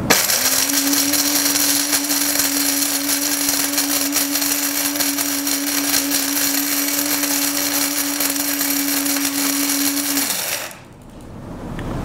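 Moulinex electric blade coffee grinder running on a light load of coffee beans: the motor spins up as the button is pressed, holds a steady whine over the rattling hiss of beans being chopped, then winds down after about ten seconds when the button is let go.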